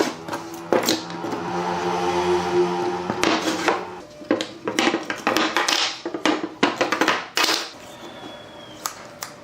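Workshop work noise: a run of uneven knocks and metal and wood clatter from hand work on parts, with a steady humming drone from about one to four seconds in, like a small power tool running.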